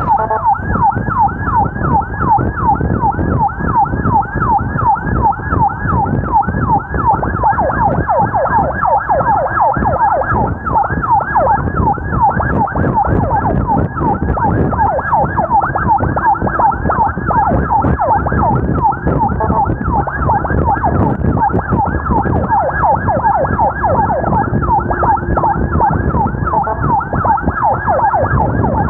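Emergency vehicle siren in fast yelp mode, its pitch sweeping down over and over about four or five times a second, over a heavy low rumble.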